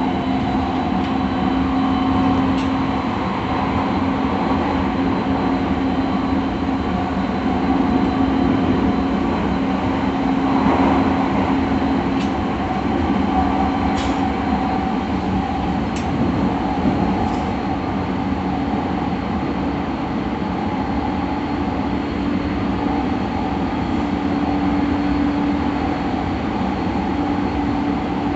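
Onboard running sound of a JR E217 series electric train travelling at speed: steady rolling noise under a constant motor hum, with a few brief clicks from the wheels.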